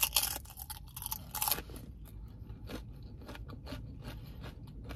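A person chewing crunchy food close to the microphone, with loud crunches in the first second and a half, then softer, scattered chewing crackles.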